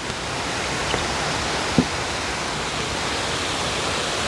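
Water spilling down the stone steps of a step dam: a steady rushing splash that grows louder over about the first second, with one small knock a little under two seconds in.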